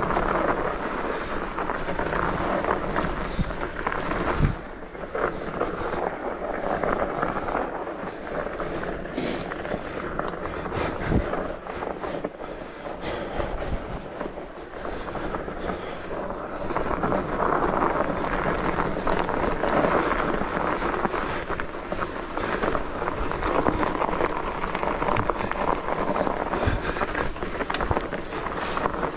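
Norco fat bike being ridden over a snowy trail: a steady rough noise of the wide tyres rolling through snow, mixed with wind on the microphone, with a few short knocks from the bike going over bumps.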